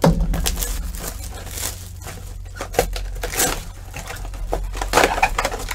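Packaging of a trading-card mega box being torn open and handled: an irregular run of tearing, crinkling and scraping.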